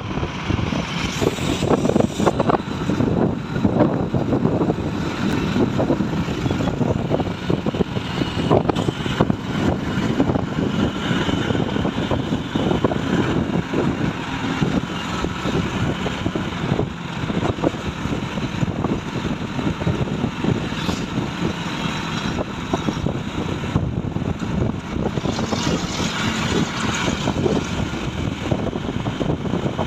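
Truck in motion: a steady mix of engine and road noise, with a constant crackle of small knocks and rattles.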